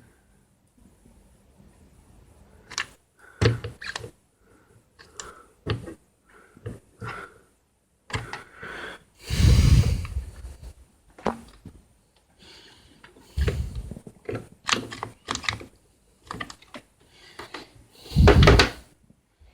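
Hands handling a computer power supply and its hardware: irregular clicks and knocks, with two heavier thumps, one about nine seconds in and one near the end.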